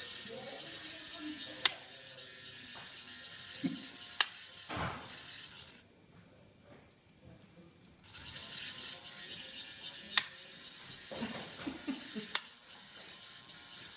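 Small electric motor of a toy foam-dart missile launcher running in two long stretches with a pause between them, with four sharp clicks as the darts are launched.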